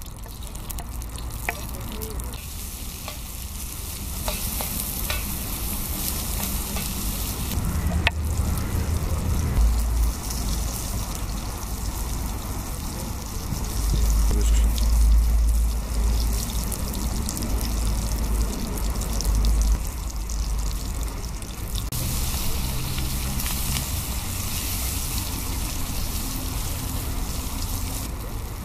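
Chopped onion, green pepper and tomato frying in hot oil in a steel pan over a campfire: a steady sizzle with a few sharp clicks of stirring. A low rumble comes and goes partway through.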